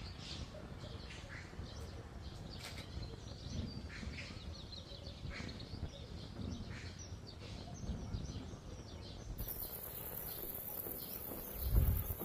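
Scattered short bird chirps over a low outdoor rumble, then a low thump near the end.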